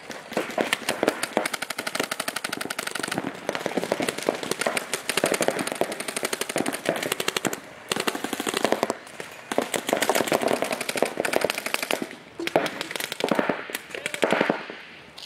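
Paintball markers firing in rapid strings of shots, several guns at once, with a few short lulls.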